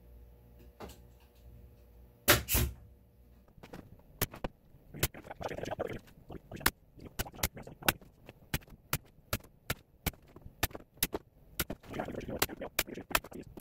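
Pin nailer driving pins through a solid-wood edge band into the edge of a plywood panel to hold the glued banding. Two louder shots come about two seconds in, then a long series of sharp clicks, about two to three a second.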